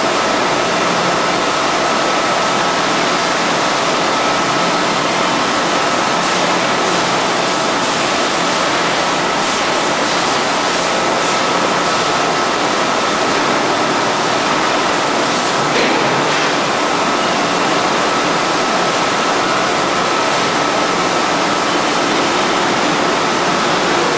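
Steady, loud machine noise of a 5-gallon water-bottle bottling line with its robotic loader running: an even hiss with a steady high whine through it, and a few faint clicks midway.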